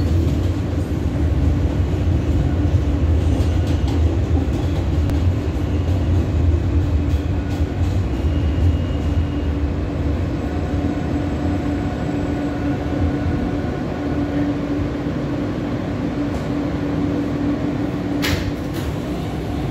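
Inside an R160A subway car running on elevated track: a steady rumble and hum. Its low drone fades away after about ten seconds as the train slows into a station. There is a brief hiss near the end.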